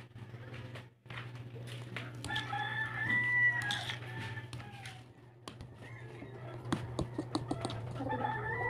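A metal spoon clinking and scraping against a ceramic plate while mashing potato and sweet potato. A drawn-out pitched call sounds in the background about two and a half seconds in and again near the end.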